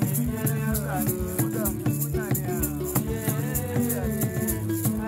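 A group of men singing together in unison, with a shaken rattle keeping a steady fast beat of about four to five shakes a second.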